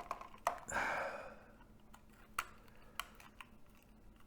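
Screwdriver prying at the plastic housing of a projector's optical block: scattered sharp clicks and taps, with a short noisy rasp about a second in.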